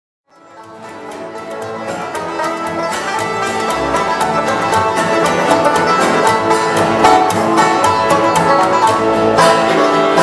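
Bluegrass music with quick banjo and guitar picking, fading in about half a second in and swelling over the next couple of seconds.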